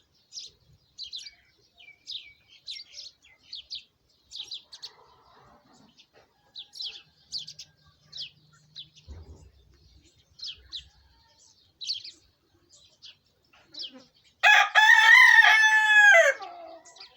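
Birds chirping in short high notes about twice a second, then near the end a rooster crows once, loudly, a long cock-a-doodle-doo that drops in pitch as it ends.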